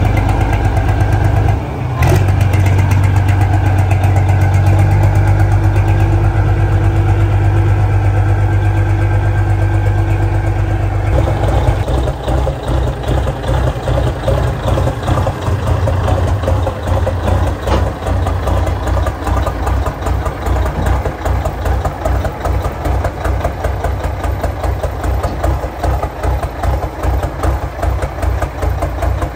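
Diesel engine of a big-rig pulling tractor running at low speed as the truck is driven up onto a trailer. A steady heavy rumble gives way about eleven seconds in to a choppier, uneven idle.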